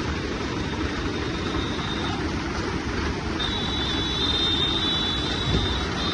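A vehicle running, with a dense, steady rushing noise; a thin, high, steady whine comes in about halfway through.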